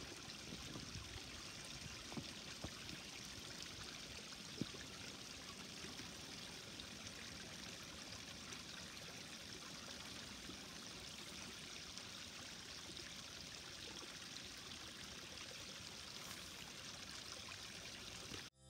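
Steady faint trickle of running water from a garden pond, with a few soft clicks in the first five seconds.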